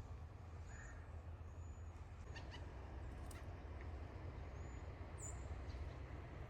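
Faint outdoor background: a steady low rumble with a few faint, short, high chirps scattered through it.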